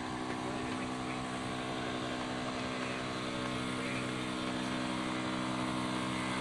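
A steady engine drone holding one pitch throughout.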